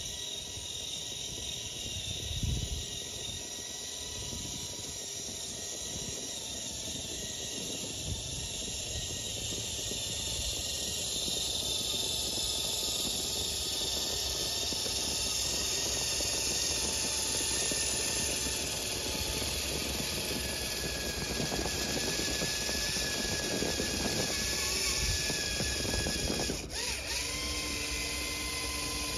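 Electric motors and gearboxes of a radio-controlled Tamiya Clodbuster monster truck whining as it drives through snow, growing louder as it approaches, with the pitch shifting near the end as it pushes into the snow bank.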